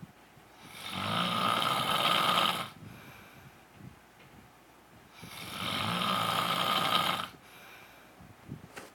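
A man snoring in his sleep: two long snores of about two seconds each, some four seconds apart, with quiet stretches between.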